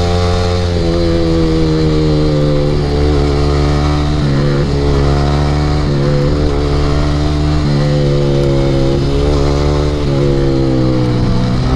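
Yamaha R15 V3's single-cylinder engine breathing through an Akrapovic aftermarket exhaust, ridden through a run of corners. The engine's pitch sinks as the throttle is rolled off and then jumps back up, several times over.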